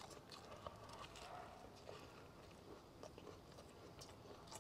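Faint chewing: a person working through a mouthful of a sesame flatbread (shaobing) stuffed with pan-fried steak and shredded potato, with soft scattered mouth clicks.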